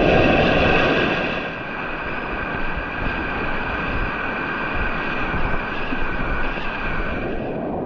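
Rushing river water with wind buffeting the microphone. The buffeting is louder for the first second and a half, then settles into a steady rush.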